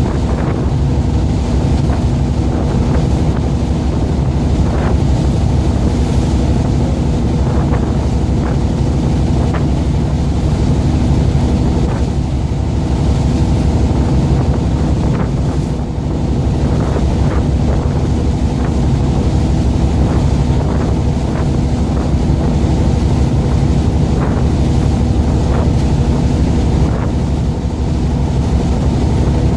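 Fishing boat's engine running steadily under way, with wind buffeting the microphone and water rushing and splashing along the hull.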